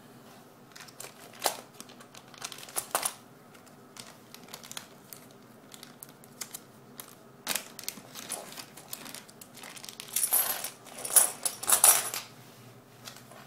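Plastic coin bag crinkling as it is unwrapped, with scattered clicks, then silver half-dollar coins spilling and clinking together onto a wooden floor in several quick clusters in the last few seconds.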